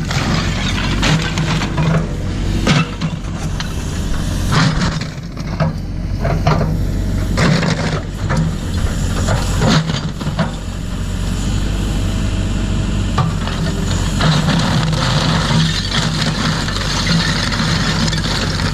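JCB 4CX backhoe loader's diesel engine running steadily, with repeated sharp knocks and clatter scattered through as the machine works.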